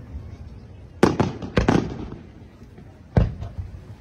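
Aerial firework shells bursting in a display: four sharp bangs, one about a second in, two close together just after, and one more about three seconds in, each followed by a short rumbling echo.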